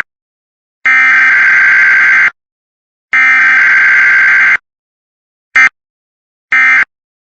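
Emergency Alert System SAME digital data bursts, loud and buzzing. There are two long bursts of about a second and a half each, a brief blip, then a short burst near the end.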